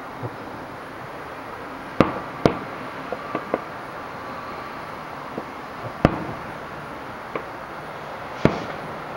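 Aerial fireworks shells bursting: loud sharp bangs about two seconds in, again half a second later, around six seconds and near the end, each trailing off in a short echo, with several fainter pops between them over a steady hiss.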